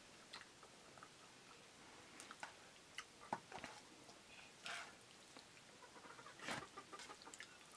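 Near silence, with faint scattered ticks and a few short soft scrapes from people eating rice and curry by hand off metal plates.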